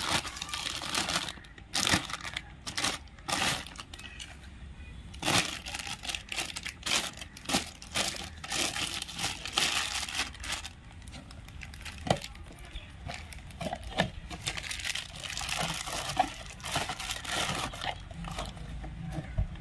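Thin clear plastic bag crinkling and rustling in the hands as toy tractor parts are pulled out of it, in irregular bursts. Near the end, a cardboard toy box is handled.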